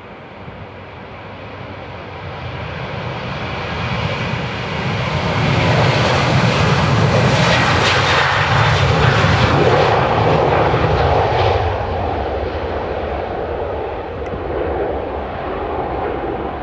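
Boeing 737-800's twin CFM56-7B jet engines at takeoff thrust as the airliner runs down the runway and lifts off. The noise builds steadily, is loudest as the aircraft passes about six to ten seconds in, then eases off as it climbs away.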